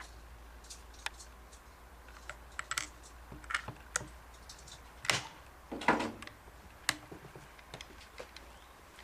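Irregular light clicks and knocks, with two louder knocks about five and six seconds in, as of a rifle's metal parts being handled.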